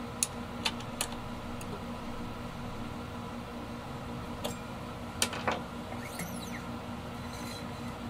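A few sharp clicks and a brief squeak from a small wrench turning the truss rod nut at an electric guitar's headstock as the rod is loosened slightly, over a steady hum of room tone.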